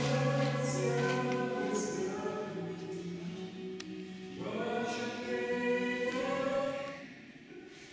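Choir singing slow, held chords. A new chord comes in about four seconds in, and the singing fades near the end.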